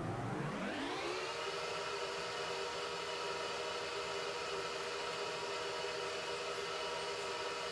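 A steady electric-sounding whir made of several pitches together, which rises in pitch over the first second and then holds level.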